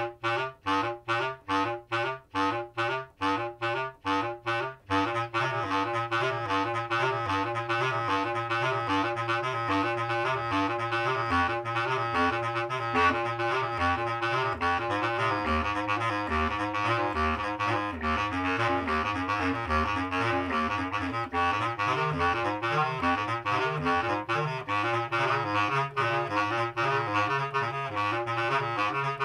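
Two bass clarinets playing low in their range, hocketing: the two players interlock short notes so that they form one rapid, driving line. For the first five seconds the notes are short and detached, about two a second with gaps between them. After that the playing turns into a continuous stream of rapid notes.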